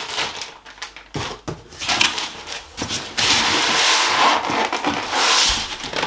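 Packing rustling and scraping inside a cardboard box as hands work the contents loose: white packing inserts and plastic wrapping rubbing and crackling against the cardboard. It starts about a second in and is loudest near the middle.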